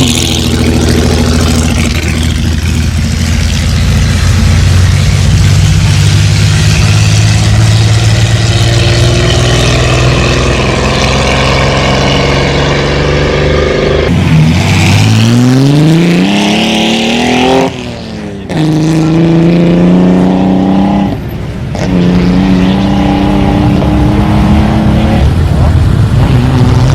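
Vintage racing car engine pulling hard: a steady engine note gives way to a steep rise in revs about halfway through. The pitch breaks off sharply at two quick gear changes before it holds at high revs.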